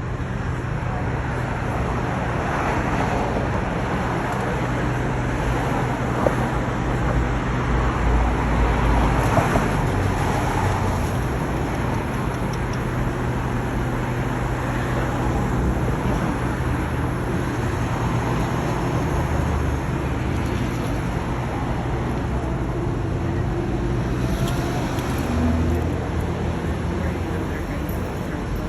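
Street traffic: cars passing, a steady wash of tyre and engine noise with a low rumble.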